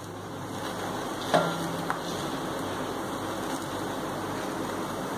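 A steel spoon spreading potato masala over a dosa on a hot iron tawa, with a sharp clink a little over a second in and a lighter tap soon after, over a steady hiss of the dosa cooking on the gas flame.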